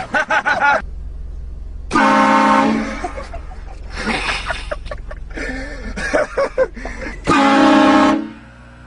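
Train horn fitted to a car sounding two short, loud blasts, about two seconds in and again near the end, with voices in between.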